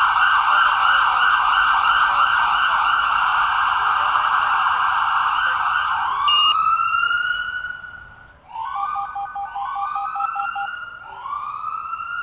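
Police siren on a fast warbling yelp that switches, about six seconds in, to slower wails, each rising and then holding, with a quick run of beeps under them a couple of seconds later.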